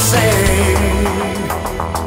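Rock band playing: electric guitars over bass and drums, loud. A wavering lead line sounds at the start, and sharp drum hits come through more clearly from about a second and a half in.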